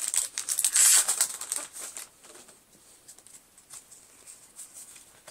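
Foil Pokémon booster pack wrapper crinkling as it is torn open, loud for about the first two seconds, then only faint rustling and small ticks as the cards are handled.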